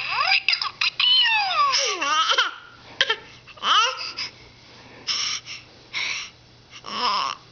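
Baby laughing and squealing with delight: long high squeals that slide down in pitch at the start, then a string of short breathy laughs.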